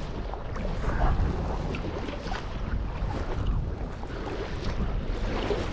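Wind buffeting the microphone over the wash of sea water, with the splashes of a canoe paddle dipping through its strokes.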